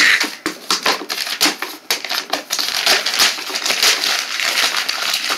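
Rapid, irregular crunching and crackling rustle close to the microphone.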